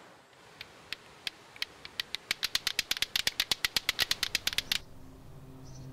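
Lato-lato clacker balls: two plastic balls on a string knocking together, first a few slow clacks, then speeding into rapid, steady clacking that stops abruptly near the end.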